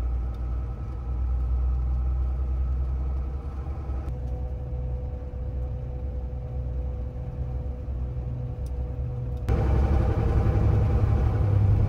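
Mercedes 4x4 expedition truck's diesel engine running on the road, heard from inside the cab as a steady low drone. The sound changes abruptly about four seconds in and again near the end.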